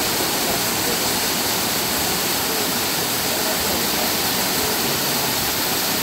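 Waterfall pouring down a rock face into a plunge pool: a steady, even rush of falling water.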